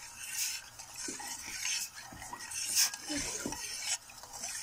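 Metal spoon stirring sugar into water in a stainless steel saucepan, with irregular scrapes and light clinks against the pan.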